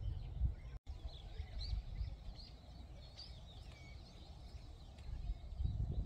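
Wind buffeting the microphone as a low rumble, easing off after the first second and picking up again near the end, with small birds chirping and twittering in quick short calls throughout. The sound cuts out completely for an instant about a second in.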